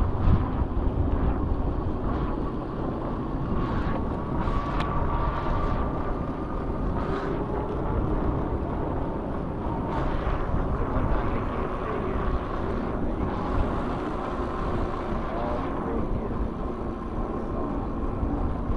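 Steady rushing noise of riding an electric bike: wind on the microphone and tyres rolling on the trail, with a faint steady whine.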